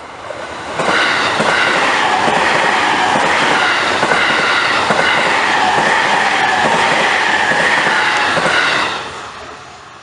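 JR East E257 series electric express train passing close by: wheels clattering over the rails, with a steady high whine over the rumble. It comes in loud about a second in and falls away near the end as the last car goes by.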